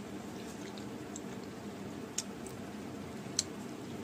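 Quiet eating sounds: a few short, sharp clicks, about two seconds in and a louder one near the end, over a steady low background hum.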